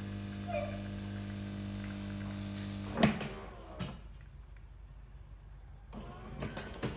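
Bosch VeroCafe TES50129RW bean-to-cup coffee machine humming steadily, then cutting off with a sharp clunk about three seconds in. A softer knock follows, then a few clicks and knocks near the end.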